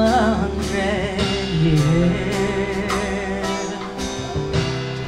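Live band playing a slow song on acoustic guitar, keyboard and drum kit, with a woman's held sung note wavering with vibrato at the start.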